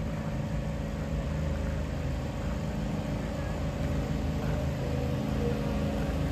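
A large engine running steadily with a low, even drone.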